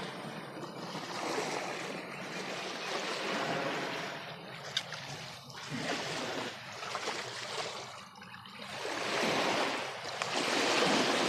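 Steady rush of flowing river water that swells and eases every few seconds, with a single sharp click about halfway through.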